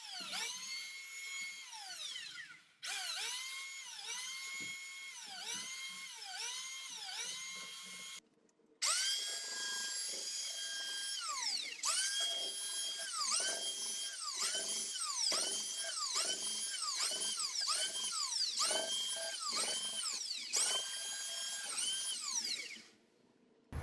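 A small high-speed power tool whining, its pitch repeatedly dropping and climbing as it speeds up and slows down, with a few abrupt breaks.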